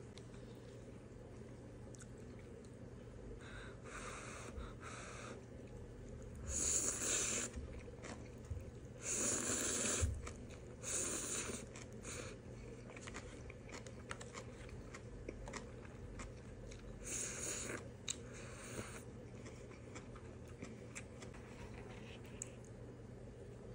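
Spicy instant ramen being slurped in a series of loud slurps, each about a second long, with quieter chewing between them.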